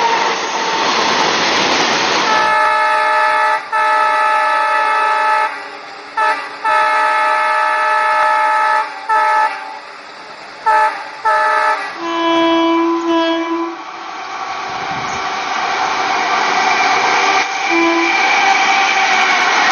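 Train horn sounding in several long blasts with short breaks, then a few shorter toots, between stretches of steady rushing train-running noise that grows louder near the end.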